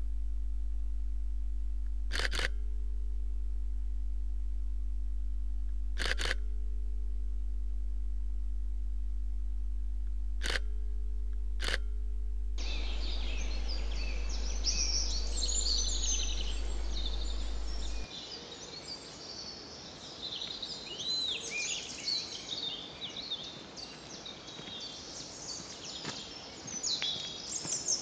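A steady low hum with four sharp camera-shutter clicks a few seconds apart. From about halfway, small songbirds chirp and sing, and the hum drops out a few seconds later.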